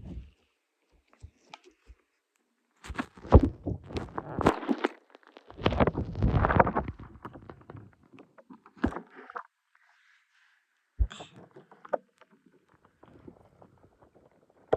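Hand-handling noises: irregular rustling with sharp clicks and knocks, in a dense cluster between about three and seven seconds in, then scattered single clicks.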